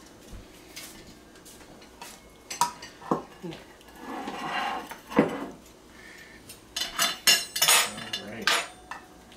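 Dishes clattering on a kitchen counter: dinner plates set down and knocked, with a brief scrape about four seconds in and a quick run of clinks near the end.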